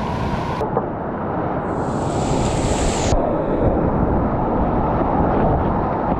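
Steady rush of whitewater in a river rapid, heard from a kayak in the rapid, with wind noise on the microphone. The high hiss drops out about half a second in, comes back briefly around two seconds, and drops away again near three seconds.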